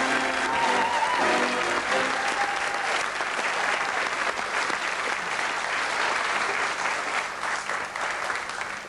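Studio audience applauding, with music playing over it for the first few seconds; the applause gradually dies down.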